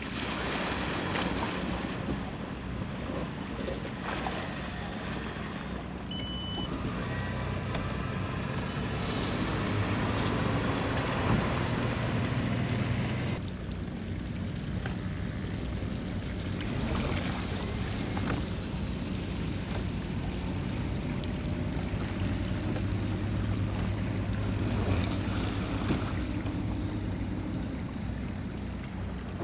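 Boat outboard motor running slowly at idle, a steady low hum, with water lapping around the hull. A short high beep sounds about six seconds in, and the sound changes abruptly about thirteen seconds in.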